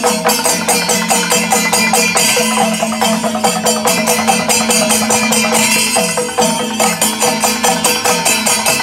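Loud, dense percussion music with quick, evenly repeating jangling cymbal strokes and a steady held tone underneath.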